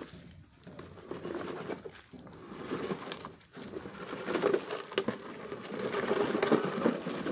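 Hard plastic wheels of a child's ride-on toy motorbike crunching and rattling over loose gravel as it is scooted along by foot, louder from about halfway through.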